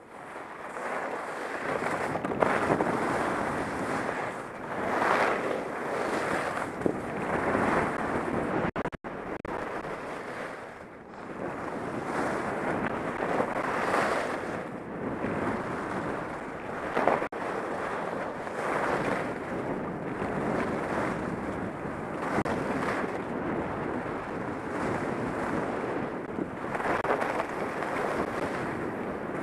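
Skis carving down a groomed slope, the edges scraping the snow in swells that rise and fall every second or two with each turn, under a steady rush of wind on the microphone.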